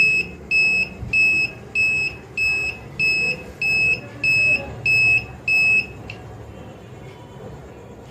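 An LPG and smoke detector's buzzer sounding its alarm. It gives about eleven short, high-pitched beeps at roughly two a second, which stop about six seconds in.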